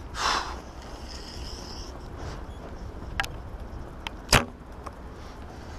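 Recurve bow being shot: one sharp snap of the released string about four seconds in, after a fainter click, over a low rumble of wind on the microphone.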